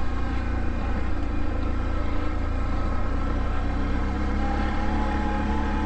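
Can-Am ATV engine running steadily while driving uphill, with a deep low rumble. A thin, higher steady tone joins in about four seconds in.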